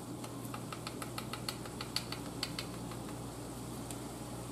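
Italian seasoning shaken from a shaker jar: a quick run of light ticks and taps, several a second for the first couple of seconds, then sparser. A steady low hum runs underneath.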